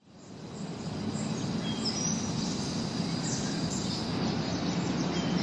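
Outdoor ambience fading in: a steady low rumble of background noise with a few short bird chirps about two seconds in.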